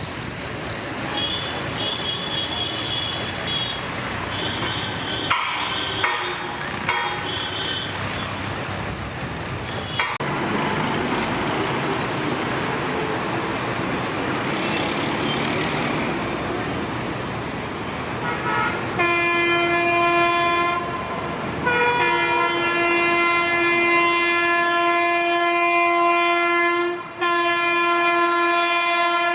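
Train running past with a steady rumble of wheels on rails that grows louder about a third of the way in. Near the end, a locomotive air horn sounds in long blasts with two short breaks.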